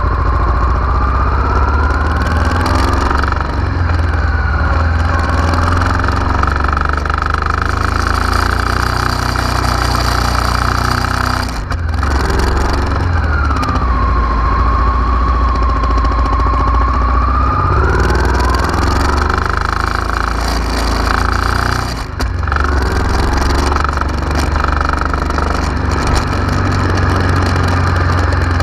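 Honda Africa Twin RD04's V-twin engine running steadily. A higher whine on top of the low engine note rises, falls and rises again with engine speed, and the sound dips briefly twice.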